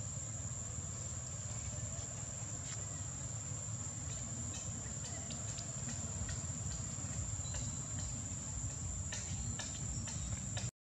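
Insects chirring steadily in one high, unbroken tone over a constant low rumble, with a few faint clicks. The sound cuts out briefly at the very end.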